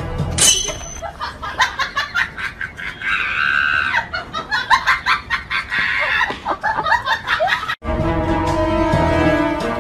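Background music, then from about a second in several seconds of rapid, high-pitched laughing and squealing. It cuts off abruptly and the music comes back near the end.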